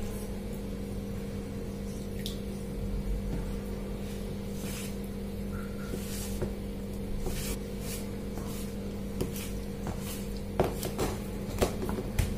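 Hands mixing and kneading crumbly wheat-flour dough in a steel bowl as water is worked in: soft squishing and rubbing with scattered light taps against the bowl, the taps coming more often near the end. A steady low hum runs underneath.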